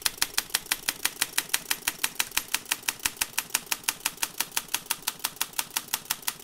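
Rapid, evenly spaced clicking, about seven clicks a second, over a faint hiss, like a teletype or typewriter-style ticking sound effect.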